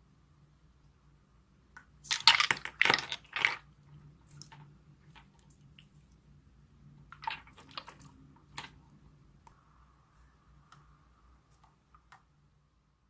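Clear slime being squeezed and pressed by hand: a quick run of about four loud wet squelches a couple of seconds in, then scattered softer squishes and little pops.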